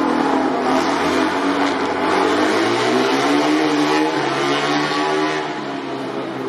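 MotoGP racing motorcycle engines running at high revs, their pitch rising and falling as the revs change, overlapping; the sound drops somewhat near the end.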